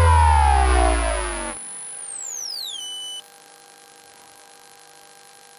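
BYD D9RA electric bus's IGBT VVVF traction inverter picked up electromagnetically by an inductor coil: its stack of tones falls in pitch as the motor slows and cuts out about a second and a half in. A high whine then glides down and stops suddenly at about three seconds, leaving a faint steady electrical hum.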